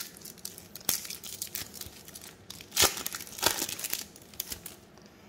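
Trading card booster pack wrapper crinkling and being torn open by hand, with the loudest crackles around the middle, then dying down near the end.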